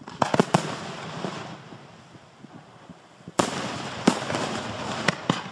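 Aerial display fireworks bursting: a quick run of sharp bangs just after the start, then a louder bang about three and a half seconds in followed by a rough hiss, with a few more bangs near the end.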